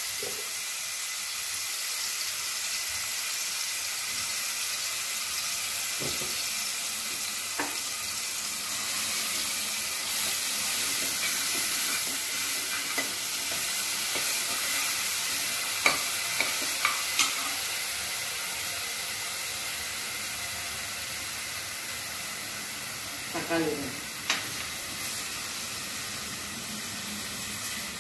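Ground onion, garlic and curry-leaf paste sizzling steadily in hot oil in an aluminium pressure cooker, stirred with a steel ladle. The ladle scrapes and gives a handful of sharp clinks against the pot about halfway through and again near the end.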